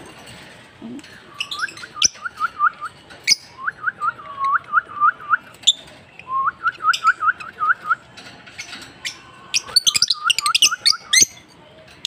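African lovebird chirping in four quick runs of short chirps that flick upward in pitch, about four a second, with sharp short clicks in between.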